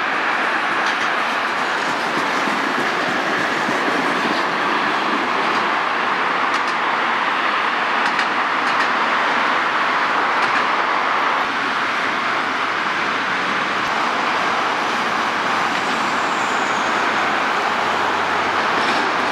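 Tram running on street rails: a steady rolling rumble of wheels on track, with a few faint clicks from the rails and road traffic mixed in.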